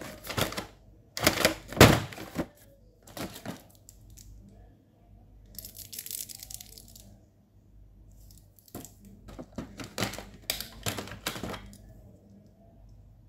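Hands handling a plastic stationery set, lifting a small eraser and a plastic pencil sharpener out of their moulded tray: sharp clicks and taps in the first few seconds and again in the second half, with a soft plastic rustle in the middle.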